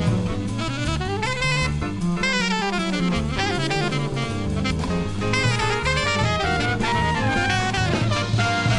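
Up-tempo jazz music, with quick melodic runs rising and falling over a walking low bass line.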